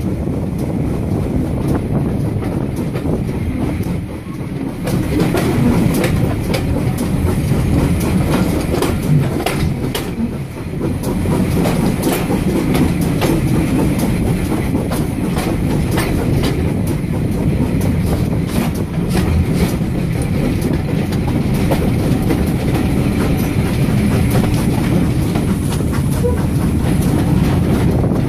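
Heritage train running along jointed track, heard from an open carriage window: a steady rumble with the wheels clicking over the rail joints, echoing off the coaches of another train running close alongside on the next track. It gets louder about five seconds in.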